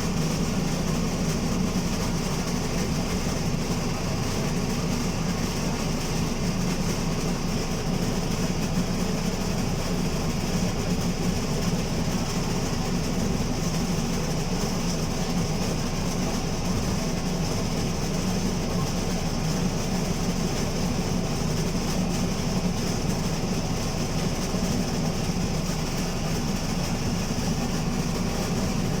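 Alexander Dennis Enviro200 MMC single-deck bus running with a loud, steady rumbling sound.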